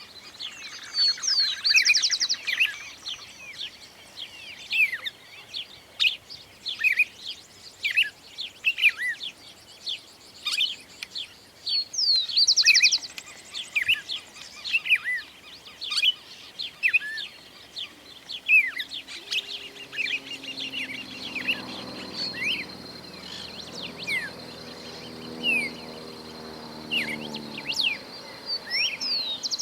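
Several birds calling, with many short whistled chirps that slide up or down and a couple of brief buzzy trills. A faint low hum comes in past the middle and fades before the end.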